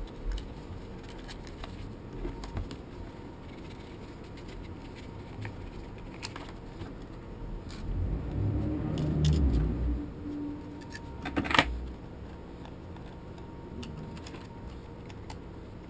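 Handling noise: scattered small clicks and rustles, a low rumbling bump from about eight to ten seconds in, and a sharp click a little after eleven seconds.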